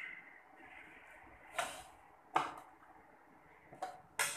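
A plate being handled and set down on a table, giving a few brief knocks and scrapes spread over the few seconds.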